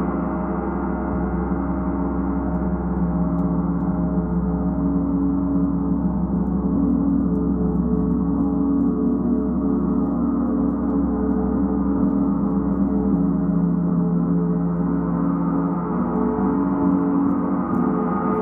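A large hanging gong played continuously with a soft felt mallet: a steady, swelling wash of many overlapping deep ringing tones, with no separate sharp strikes standing out.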